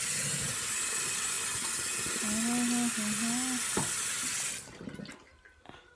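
Tap water running full into a bathroom sink, the steady splash stopping abruptly about three-quarters of the way through as the tap is shut off. A short wavering hum-like tone sounds over the water in the middle.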